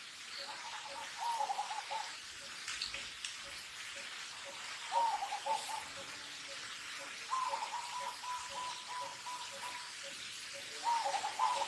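A young long-tailed macaque crying in distress: high, wavering calls in short bouts, with one longer, steadier call in the second half. A faint pulsing note about twice a second and a steady hiss run underneath.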